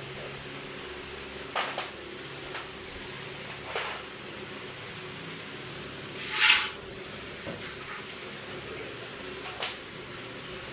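Metal tools and parts clinking and knocking against each other, about six sharp hits, the loudest and longest one about six and a half seconds in, over a steady low hum.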